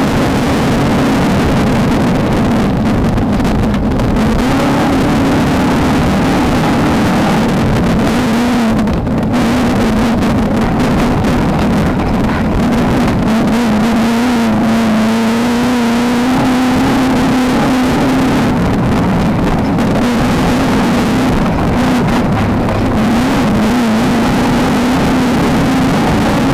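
Off-road race car engine running hard under load, its pitch wavering up and down and held steadier for a few seconds in the middle, over rattling road noise.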